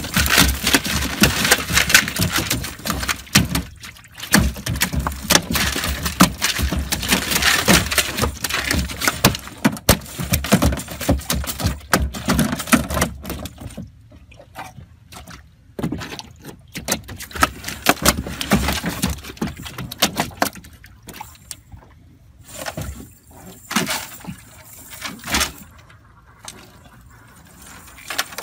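Large catfish thrashing and slapping on the wet floor of a small boat, tangled in a cast net, with water splashing and dripping from the mesh. The dense flapping dies down about thirteen seconds in to scattered splashes and knocks.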